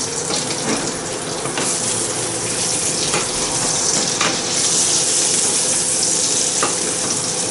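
Brill fillet frying in butter in a pan, a steady sizzle that grows a little louder about halfway through, with a few clicks of a metal spoon against the pan as the hot butter is spooned over the fish. A faint steady hum of a microwave oven runs underneath.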